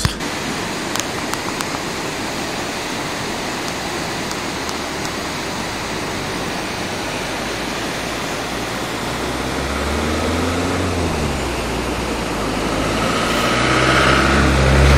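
Muddy river in flood rushing below, a steady, even rush of water. A motor vehicle's engine comes in about ten seconds in and again near the end, getting louder.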